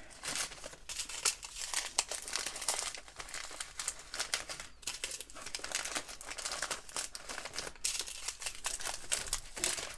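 Clear plastic zip bags crinkling in the hands as small baggies of diamond-painting drills are pushed into a larger plastic bag, with quick irregular crackles throughout.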